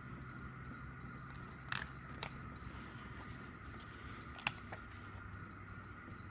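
Pages of a glossy photo book being turned by hand, with a few short crisp snaps of paper about two seconds in and again past the middle, over a faint steady hum.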